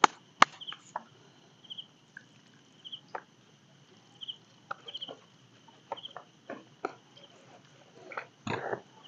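Spoons clicking and scraping on plastic plates as two people eat, with a louder scrape near the end. Behind it, an insect chirps steadily, a short pulse about once a second.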